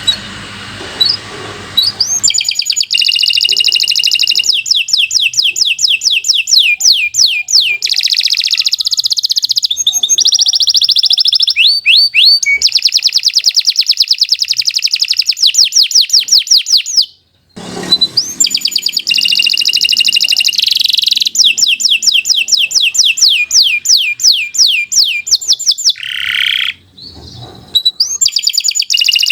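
Domestic canary singing a long, continuous song of fast repeated trills, with a brief break a little past the middle.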